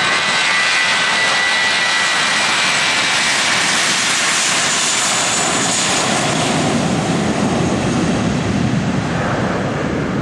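Airbus A321's IAE V2500 turbofans running at takeoff power on the takeoff roll. It is a loud, steady jet roar with a high fan whine early on, turning to a deeper rumble in the second half as the aircraft passes and moves away down the runway.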